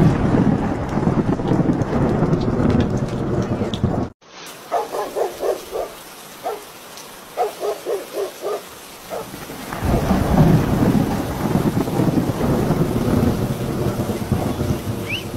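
Rain falling with low thunder rumbling, loud for the first few seconds and again from about ten seconds in. In the quieter stretch between, two quick runs of short repeated calls are heard.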